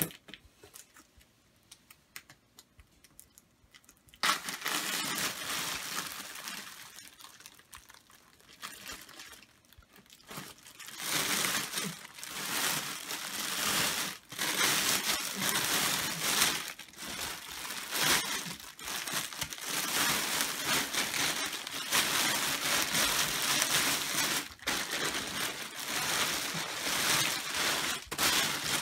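Thin plastic vacuum storage bag crinkling and rustling as it is unsealed and the compressed plush toy inside expands and is pulled out. A steady rushing noise starts suddenly about four seconds in, and the crinkling turns loud and continuous from about ten seconds on.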